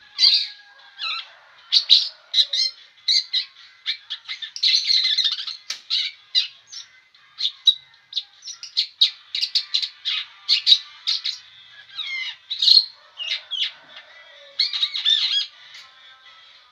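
Long-tailed shrike (cendet) singing on and on: a rapid, varied run of short chirps and harsh, squawky notes, with only brief pauses.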